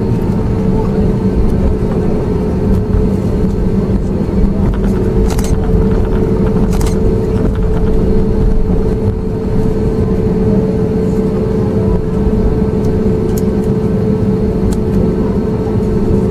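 Airbus A320neo cabin noise while taxiing: a steady low rumble from the CFM LEAP-1A engines at idle and the wheels rolling on the taxiway, with a steady hum and a couple of faint clicks.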